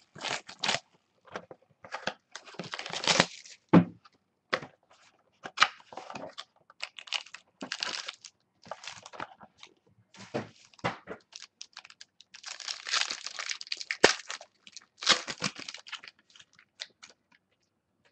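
Wrapping of football trading-card packs being torn open and crinkled, with cards shuffled in between: irregular rustling and tearing, with two longer rips, a few seconds in and near the end, and one sharp click.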